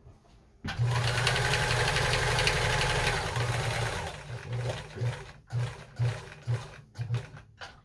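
Kenmore 158.14000 sewing machine stitching through a thick denim seam. It starts at a steady fast run about a second in, then slows to short bursts of a few stitches at a time.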